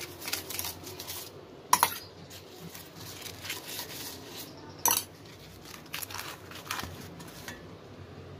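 Steel spoon scraping over a roti on a stainless steel plate as ghee is spread, with two sharp clinks of spoon on plate, about two seconds in and again near five seconds.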